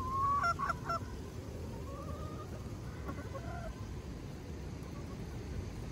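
Backyard hens calling while foraging: a drawn-out rising call, then a few short, loud clucks about half a second in, followed by fainter calls around two and three seconds in.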